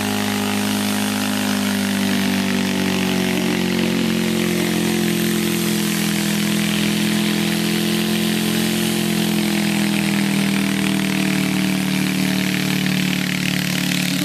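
Garden tractor engine running steadily, its pitch sagging slightly over the first few seconds and then holding level.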